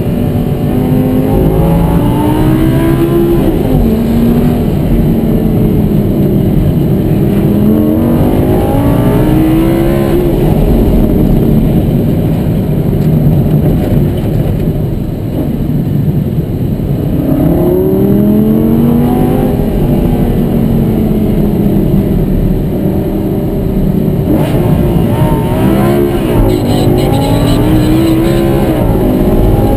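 Lamborghini Gallardo's V10 engine, heard from inside the cabin, driven hard on a track: it climbs in pitch under full acceleration and falls back as the driver shifts or lifts, several times over, with a lower, quieter stretch around the middle.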